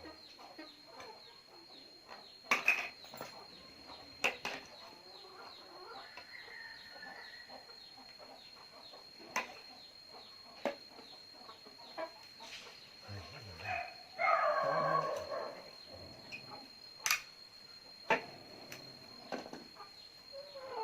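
Chickens clucking, with a louder run of clucking about two-thirds of the way through. Scattered sharp knocks and taps come from hand work, and a faint steady high-pitched whine runs underneath.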